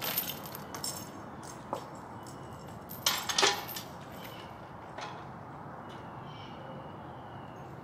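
Scattered short clicks and rattles from rigging a pulling strap high on a tree trunk, the loudest cluster about three seconds in, over a faint steady outdoor background.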